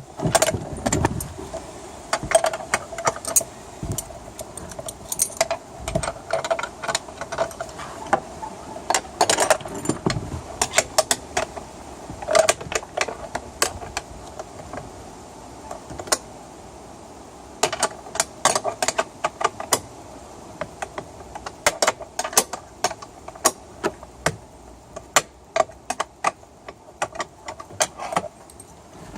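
Small metal parts clinking and rattling as a boat rudder assembly is bolted together: bolts, washers and hand tools knocking against each other in irregular sharp clicks, some in quick clusters.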